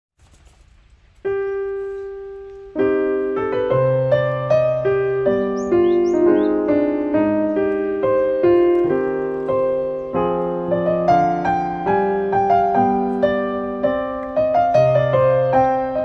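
Background piano music: a single note struck about a second in and left to ring, then a steady run of notes and chords.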